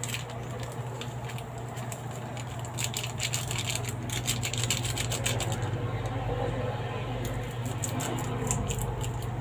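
A pan of instant noodles simmering on a gas burner: fast, irregular clicking and crackling in two spells, the first about three seconds in and the second near the end, over a steady low hum.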